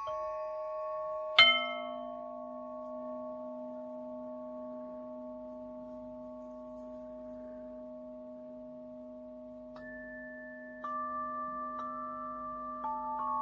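Meditation music of bell-like tones: one tone is struck about a second and a half in and rings on with a long, slowly fading sustain. Near the end, a few softer tones enter one after another and layer over it.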